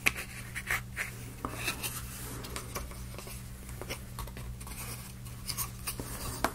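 Steel screwdriver tip wedged into the seam of a laser-cut plywood disc, prying at it with irregular small clicks, taps and scrapes of metal on wood, the sharpest click about the start and another near the end. A steady low hum runs underneath.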